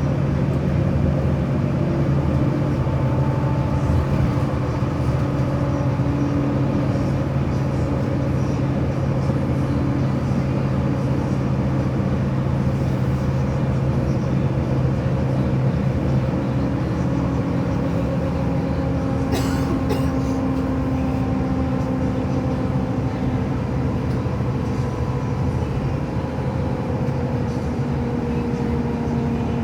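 Steady drone of a moving vehicle, with several humming tones that slowly drift in pitch; a brief click about two-thirds of the way through.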